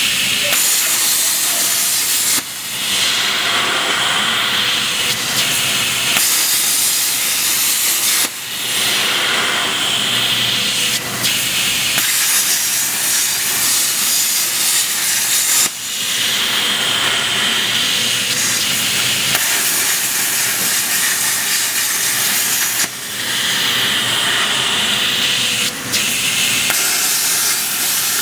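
CNC plasma cutting torch running, a loud steady hiss that breaks off briefly and starts again about every six to seven seconds, four times.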